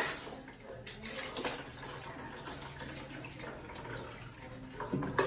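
Soft sloshing and splashing of soapy water in a plastic baby bathtub as hands wash a baby.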